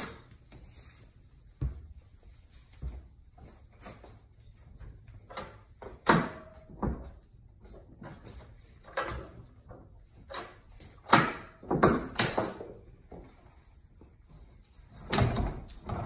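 Scattered knocks, clunks and rattles, about seven louder ones spread out, as a trolling motor is handled and shifted on its bow mount.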